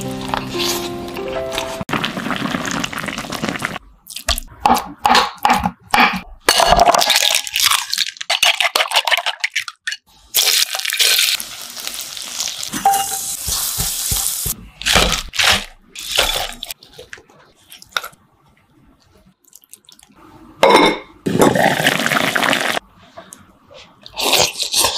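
Kitchen cooking sounds, with a little background music at the start: short clinks and scrapes of utensils on pots, then oil sizzling steadily for a few seconds around the middle as tofu fries in a pan, followed by more brief clinks and stirring noises.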